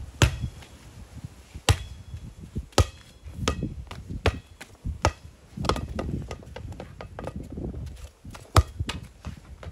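A rubber ball being kicked and bouncing on concrete paving: a run of sharp slaps, about seven in all, irregularly spaced, the loudest near the end, with a low rumble between them.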